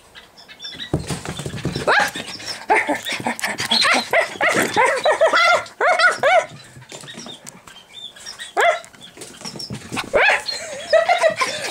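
Pomeranian puppy barking in rough play: a quick run of short, high barks and yaps, easing off for a couple of seconds past the middle before picking up again near the end.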